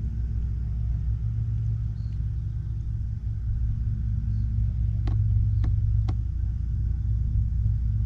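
Steady low hum and rumble of a motor, with three short sharp clicks about half a second apart a little after five seconds in.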